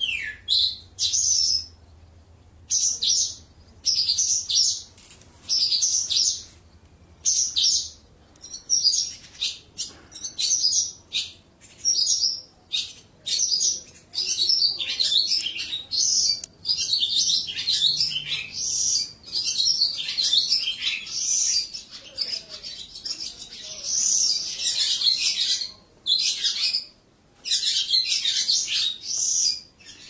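A caged lark singing: a long run of short, varied high chirps and trills, phrase after phrase with brief pauses between them.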